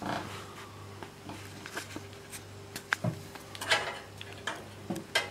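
Light clicks and taps from the metal parts of an old Wilesco D24 toy steam engine being handled, with a sharper click about three seconds in and a cluster soon after, over a steady low hum.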